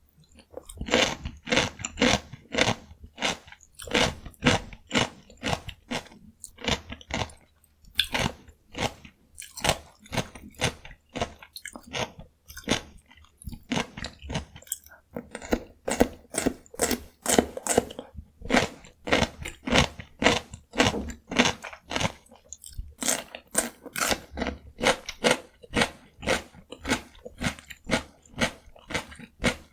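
Close-miked crunchy chewing of raw cucumber dipped in gochujang: runs of wet, crisp crunches several times a second, broken by a few short pauses between bites.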